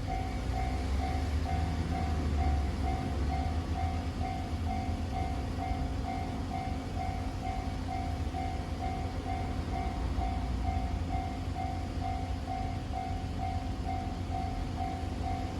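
Japanese level-crossing warning bell ringing in even electronic strokes, a little under two a second, over the low rumble of a JR Nambu Line E233 series train running through the crossing.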